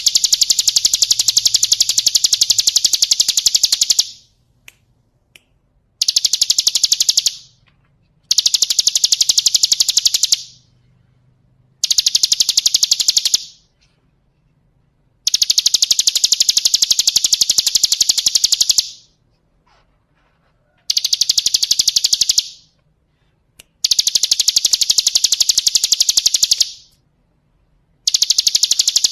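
Hill prinia (ciblek gunung) song: loud, high-pitched, very rapid trills. The trills come in about eight bursts of one to four seconds each, separated by short pauses.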